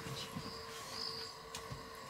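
Faint night chorus of insects: a steady high drone with short shrill chirps about once a second, over a low rumble.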